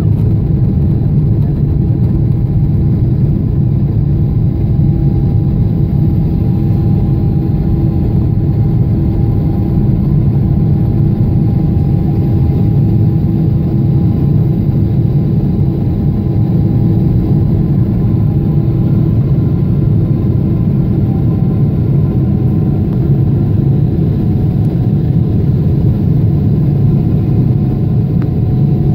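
Airliner's turbofan engines at high thrust during lift-off and climb, heard inside the cabin at a window seat: a loud, steady rumble with a faint whine, whose pitch dips slightly about twenty seconds in.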